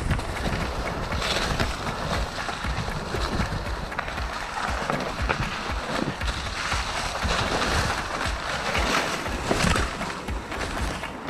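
Mountain bike riding over a rough trail: gusty wind on the microphone with the rattle and knock of the bike and its tyres on the ground.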